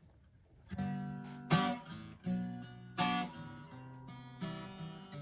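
Acoustic guitar strumming chords as the song's intro, starting under a second in, with the hardest strums about a second and a half apart.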